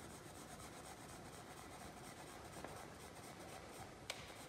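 Pencil shading on drawing paper: faint, continuous scratching of hatching strokes laying down tone, with a single small click about four seconds in.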